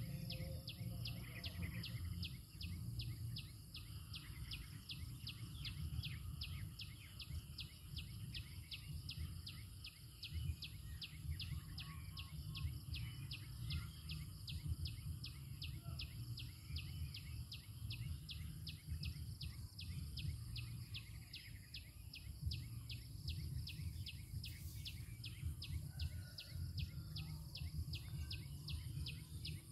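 Rural field ambience: a steady high-pitched insect drone with a call pulsing about four times a second throughout, over a low rumble.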